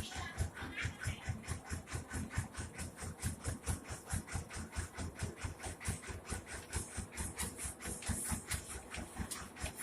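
The engine of an old rice huller running steadily, with an even beat of about five strokes a second.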